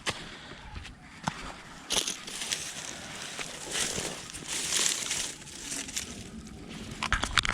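Irregular rustling and crunching, with a quick run of sharp clicks near the end, from close handling while the freshly caught small snakehead is landed.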